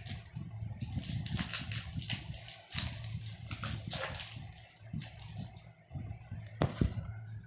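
Foil trading-card booster pack crinkling as it is torn open, then cards being handled, with a sharp click near the end and a steady low hum underneath.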